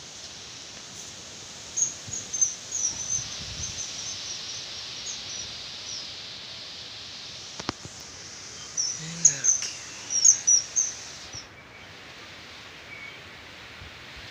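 Steady rush of storm wind through rice plants and trees, with small birds chirping rapidly in two spells that are the loudest sounds.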